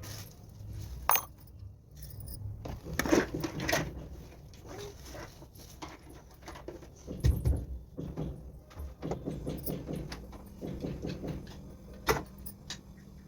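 Small hard objects clinking and jangling as things are rummaged through and moved about, with sharp clicks about a second in, a busier patch of clinking around three to four seconds, a dull thump midway and another sharp click near the end.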